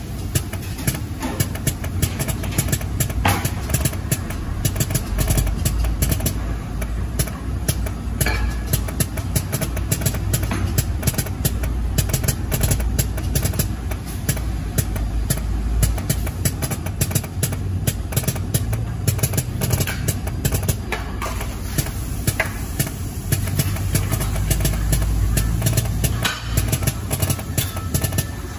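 An 18-colour plastisol (soft PVC) dispensing machine running: a steady low drone with many fast, irregular clicks.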